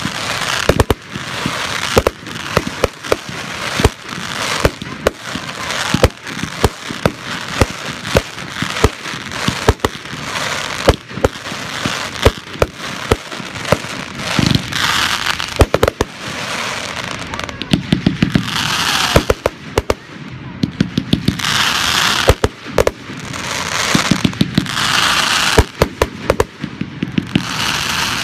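Fireworks display: a continuous run of sharp bangs from shells bursting, some in quick clusters, with stretches of hissing crackle from the burning stars in between.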